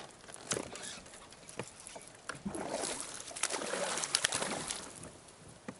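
A hooked bass splashing and thrashing at the surface, with scattered clicks and knocks of the fishing reel and rod against the kayak. The splashing is densest and loudest from about two and a half to five seconds in.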